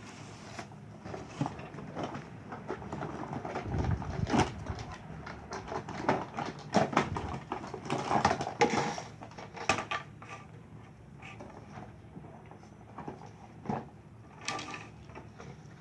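A toy RC helicopter's box and packaging being handled and opened: irregular rustling, clicks and knocks, with a heavier thump about four seconds in.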